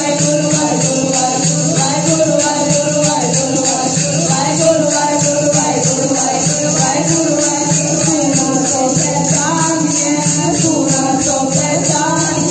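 Live Sikh kirtan: a singer's voice over a sustained harmonium-like drone, with steady jingling hand percussion keeping the beat.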